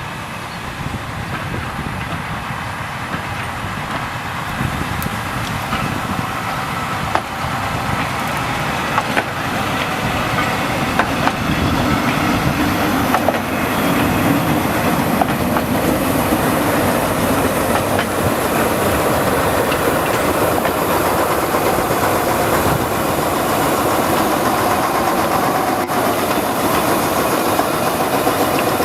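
Krupp-built D300 diesel-hydraulic shunting locomotive running, growing louder over the first half and then holding steady, with scattered sharp clicks from the wheels and rails.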